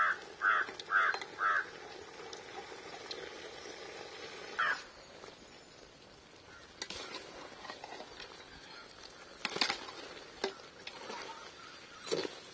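A crow cawing: four quick caws about half a second apart, then one more a few seconds later. A few sharp knocks follow in the second half: a ladle striking the curry pot as it is stirred.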